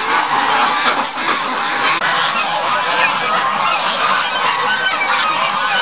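A large flock of white domestic geese honking together, many overlapping calls without a break.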